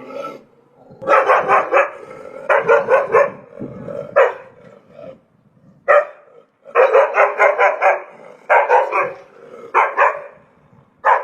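A dog barking in quick volleys of several barks each, with short pauses between the volleys.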